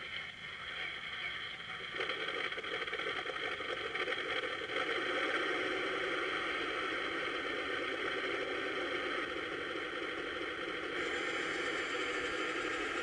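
Electronic tank-engine sound effect from a 1:16 RC M41A3 Bulldog tank's built-in sound unit, running steadily and growing louder and fuller about two seconds in.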